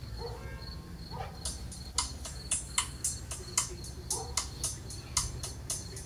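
Night insects calling: a steady high trill, then from about a second and a half in, a rhythmic run of sharp chirps, about three to four a second.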